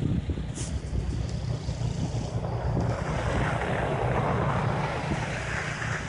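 Wind buffeting the microphone in a steady low rumble, with a rushing hiss that swells about halfway through and then eases off.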